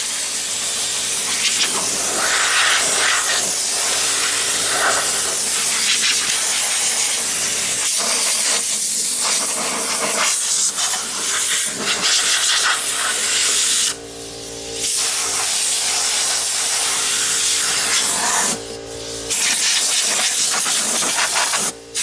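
Compressed air hissing loudly from an air-hose blow gun as it blows debris off a push mower's engine and deck, with the air cutting off briefly twice, about two-thirds of the way through and again a few seconds later. Under it an air compressor runs with a steady hum.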